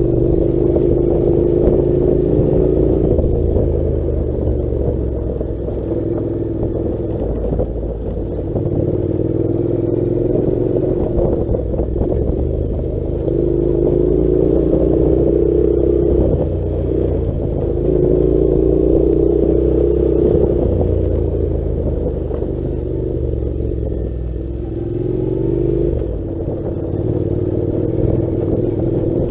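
Honda NC700's parallel-twin engine running at low road speed, its pitch rising several times as the throttle is opened and easing back between. Clatter from the bike jolting over a rough, stony dirt track runs underneath.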